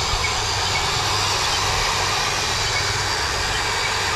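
Electric drive motors of a Huina radio-controlled excavator running steadily as it tracks and slews round.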